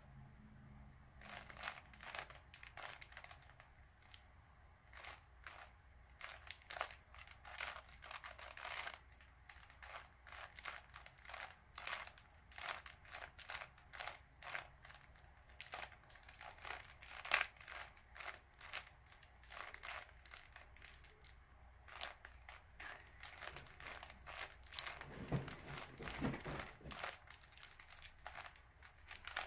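Standard plastic Rubik's Cube being turned by hand during a solve: a steady run of irregular clicks and clacks as the layers rotate, with a few duller knocks near the end.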